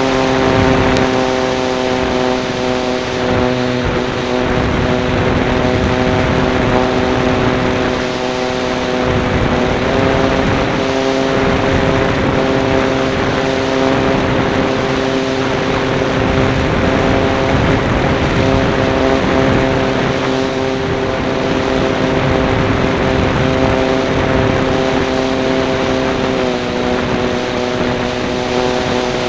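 Small engine of a radio-controlled model Cessna running steadily at high speed, heard close up from on board with a rush of wind. Its pitch steps up slightly about a third of the way in and drops a little near the end.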